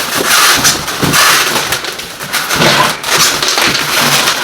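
Packaging being handled: uneven rustling and crinkling with small cracks as items and their securing rope are pulled out of a box.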